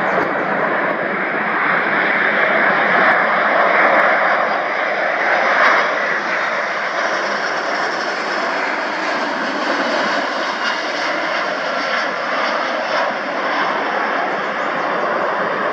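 Fixed-wing aircraft engines running loud and steady, swelling to a peak about three to six seconds in and then holding steady.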